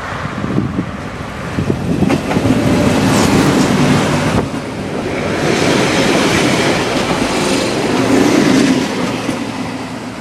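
Silver Fern diesel railcar passing close by: its wheels clicking over the rail joints and the running noise swelling in two loud spells with a brief dip between, then fading as it runs away.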